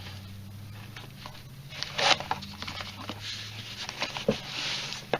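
Handling noise as a tool kit is taken out and opened: scattered clicks, knocks and rustling, over a low steady hum that stops about two-thirds of the way through.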